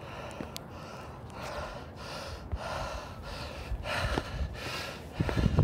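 A man breathing hard from the effort of climbing rock, with rapid, heavy gasps in and out at about two breaths a second. A loud low thump comes near the end.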